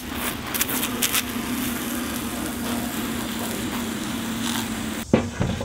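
Media blaster spraying abrasive onto the boat's rudder to strip the old bottom paint: a steady rushing blast with a constant hum under it, a few sharp clicks near the start, cutting off about five seconds in.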